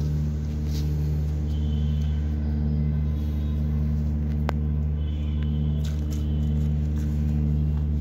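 A steady low hum with several overtones, like a running motor or electrical hum, with faint rustling of hands working moist cocopeat and one sharp click about halfway through.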